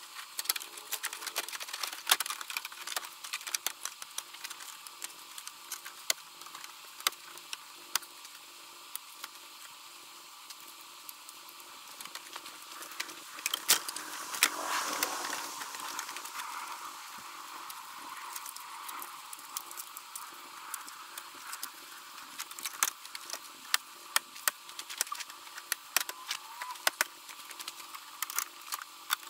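Scattered clicks, knocks and rattles of plastic and metal parts and hand tools as a pickup's grille and front bumper trim are fitted back on, with a longer scraping rustle about halfway through.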